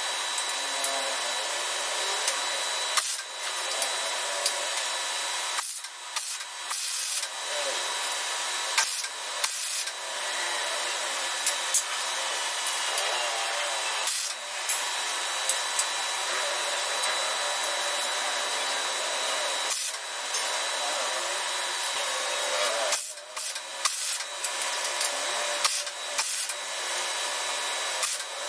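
A power tool running steadily with a thin high whine, briefly dropping out several times, with sharp knocks around those breaks.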